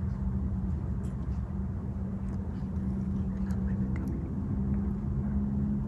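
A steady low engine hum with a held drone, with faint light ticks over it.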